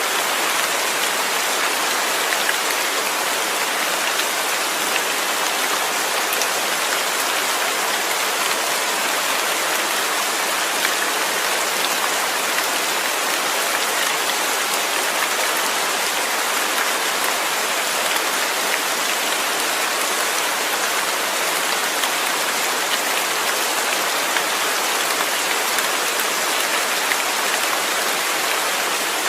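Steady rain falling on a surface: an even hiss of many drops with fine scattered patters, holding level throughout.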